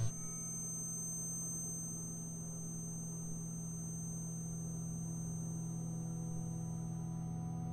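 A steady, sustained electronic drone of several held low tones with a faint high whine above, starting with a short sharp hit; film score sound design.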